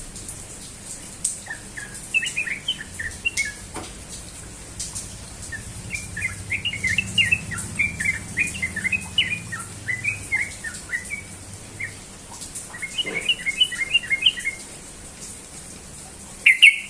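Sooty-headed bulbul (trucukan) singing its rapid 'ropel' song: quick runs of chattering, whistled notes in three bursts, the longest in the middle, ending with one loud short call.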